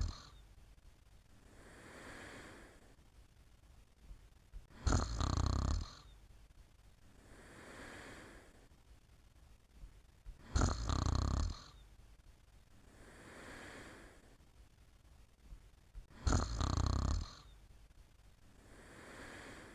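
Steady snoring in a slow, regular rhythm. A loud snore about a second long comes on each breath roughly every five and a half seconds, three times in all, and a softer, breathy exhale falls between them.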